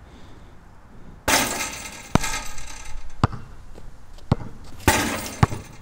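A basketball bouncing on the court, single sharp bounces roughly once a second. There are two longer rattling crashes, one just over a second in and one near the end.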